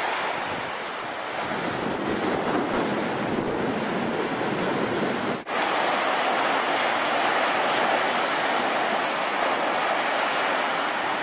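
Waves breaking and washing onto a pebble beach, a steady rush of surf that briefly drops out about halfway through.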